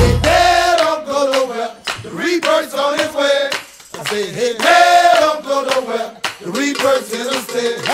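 New Orleans brass band cuts out within the first second, leaving male voices singing together over handclaps.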